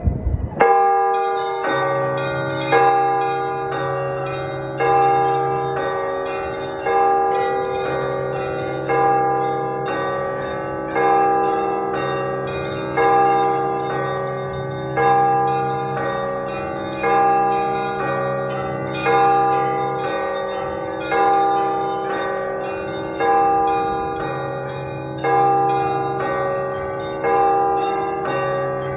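Russian Orthodox church bells rung in a peal: small bells struck in quick succession over a heavier accented stroke about every two seconds, with a deep bell humming underneath. The ringing starts about half a second in.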